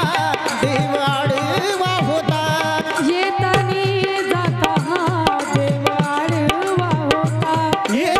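Live performance of a gavlan, a Marathi devotional folk song, played at a steady full level. A regular hand-drum beat runs under a held, wavering melody, with a woman singing into a microphone.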